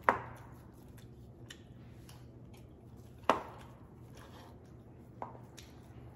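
Kitchen knife cutting down through a Vietnamese pork roll (chả lụa) and knocking on a plastic cutting board: a sharp knock at the start, another about three seconds in, and a softer one about five seconds in, with faint clicks between.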